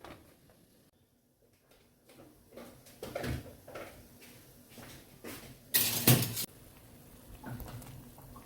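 Kitchen handling noises: scattered knocks and clicks of utensils and cookware, with one brief loud rushing burst about six seconds in.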